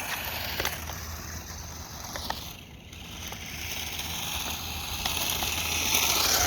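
Battery-powered RC car driving on pavement: a steady whirring hiss from its electric motor and tyres. It dips briefly about three seconds in, then grows louder near the end.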